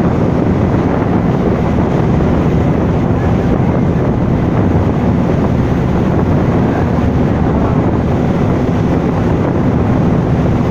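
Loud, steady wind buffeting the microphone at sea, with a low steady hum underneath.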